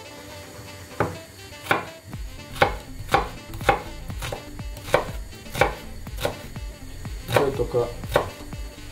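Kitchen knife chopping shallot on a cutting board: about ten sharp chops, unevenly spaced roughly half a second to a second apart.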